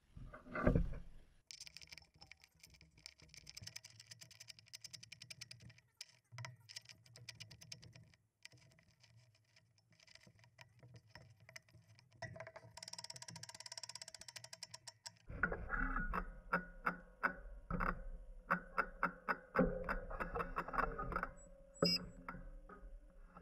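A knock, faint metal handling of a bolt and nuts, then a spinning bicycle wheel whose disc brake rotor scrapes against a bolt held beside it, a regular ticking scrape about three times a second over a low rumble. The scrape comes where the rotor is bent toward the bolt, with a quiet stretch where it runs clear.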